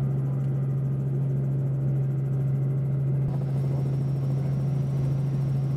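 Light helicopter in flight, heard from inside the cabin: a steady engine and rotor drone with one strong low hum.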